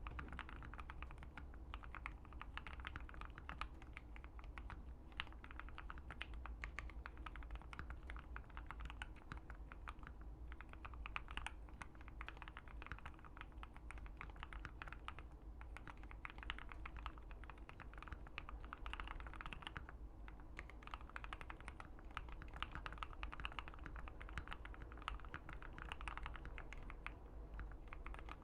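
Fast continuous typing on a Keychron Q1 75% mechanical keyboard with an FR4 plate and banana split linear switches: a dense stream of key clacks with no pauses longer than a moment.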